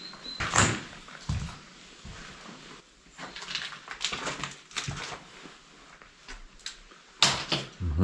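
Irregular knocks, thuds and scuffs of someone walking and handling things in an empty room, with louder knocks about half a second in and about seven seconds in.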